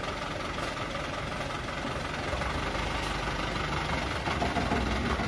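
Light dump truck's diesel engine running with its tipper bed raised, growing slightly louder toward the end.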